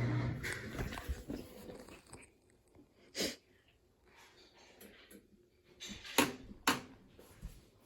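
Washing machine's heavy hum dying away in the first second or so as it stops. This is followed by quiet with a few short, sharp knocks and clicks, the loudest two coming close together near the end.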